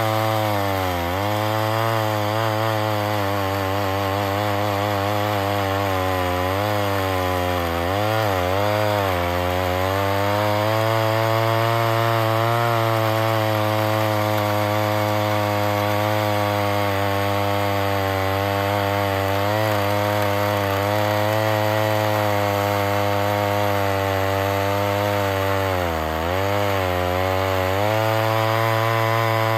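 Homelite XL-12 two-stroke chainsaw running flat out through a log. Its engine pitch dips briefly as it loads up in the cut about a second in, again around eight seconds and once more near the end.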